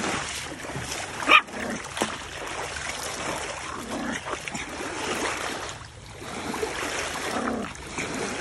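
Small white dog barking sharply once about a second in, with a few softer short sounds later, over water splashing against the bank.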